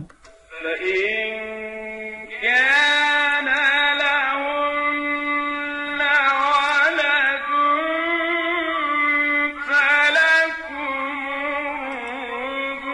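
A male Quran reciter's solo voice chanting in maqam Hijaz, holding long ornamented notes that waver in pitch, in phrases several seconds long with short breaks between them. The top end of the old recording is cut off.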